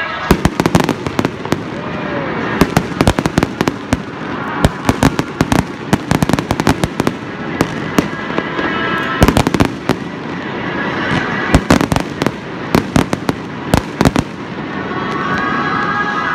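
Fireworks display: volleys of sharp bangs and crackles from aerial shells, fired in quick clusters a few seconds apart, the bangs stopping shortly before the end.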